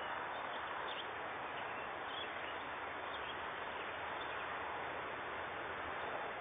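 Steady outdoor background noise, with a few faint, short, high chirps from swallows about one, two and three seconds in.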